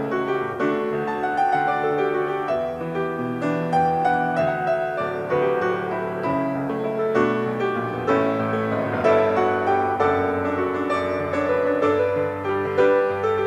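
Instrumental piano music, a continuous run of struck notes over sustained lower notes.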